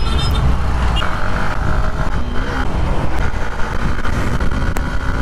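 Hero Xtreme 160R single-cylinder motorcycle under way at speed, a steady rush of wind and road noise with a heavy low rumble.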